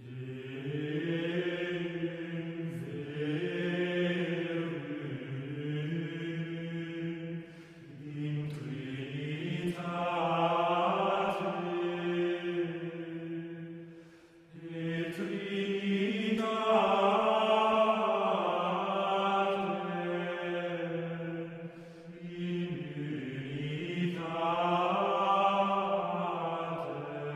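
Slow chanted singing: held, slowly shifting notes in long phrases of about seven seconds each, with short breaks between them.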